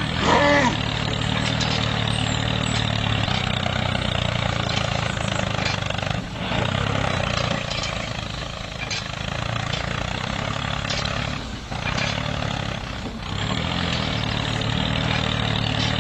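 A tractor engine running steadily, with a brief wavering, high-pitched sound right at the start.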